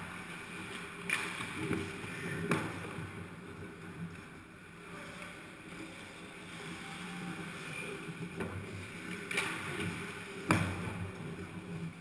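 Ice hockey play in a rink: skates scraping on the ice under a steady low hum, with a few sharp knocks of sticks and puck, the loudest near the end.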